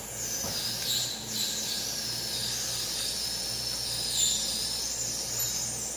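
A 3D-printed wine-glass-shaped fixture singing as it is worked by hand at its top ring: a high, squealing ring that wavers up and down in pitch for several seconds.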